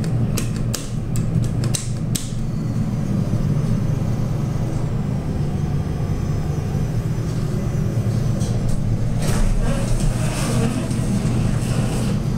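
Montgomery hydraulic elevator running with a steady low hum, a quick series of clicks in the first two seconds and a short rush of noise about ten seconds in.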